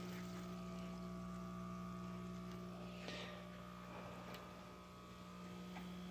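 Aquarium pump humming steadily at a low pitch, with a brief soft noise about three seconds in.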